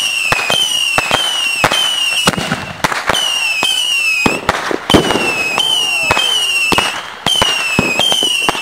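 Consumer 1.4G fireworks cake firing whistling shots in quick succession, about two a second: each a sharp pop followed by a high whistle that falls slightly in pitch.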